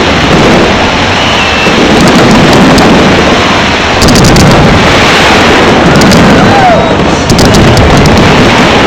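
New Year fireworks display bursting without pause, the bangs merging into one dense, loud, continuous din, with a few short whistles rising and falling through it.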